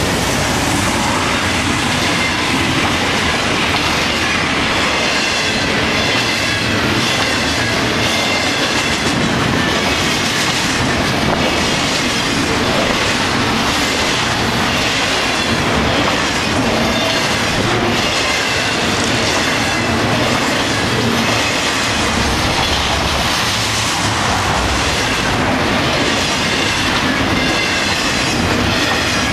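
Intermodal freight train passing close by at speed, its flatcars loaded with highway trailers: a steady, loud rumble and clatter of steel wheels on the rails, with a faint high squeal from the wheels.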